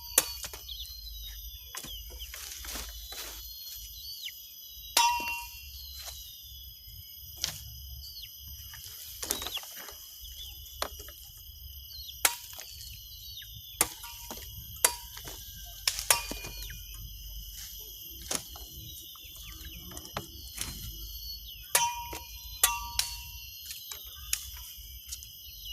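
A golok (machete) chopping: sharp, irregular strikes, one every second or two, some followed by a brief metallic ring from the blade. A steady high-pitched background whine runs underneath.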